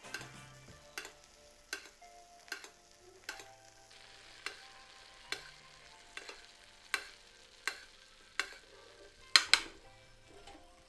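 Butter sizzling under a frying sole while a metal spoon bastes it, clinking against the stainless steel frying pan about once a second, with the loudest clinks near the end.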